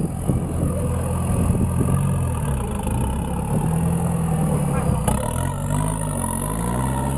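Off-road trial buggy's engine revving up and down as it climbs out of a pit in loose dirt, one longer rev near the middle, then quick repeated blips of the throttle near the end.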